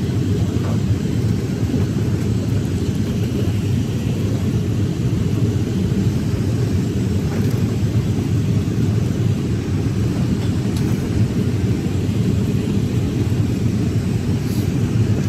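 Airliner cabin noise on final approach: a steady low rumble of the engines and rushing air, heard from inside the passenger cabin, holding an even level throughout.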